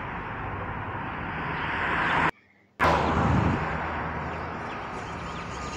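Aircraft engines running on the runway: a steady rushing noise that swells slightly and cuts out for about half a second a little over two seconds in, as the plane moves along the ground.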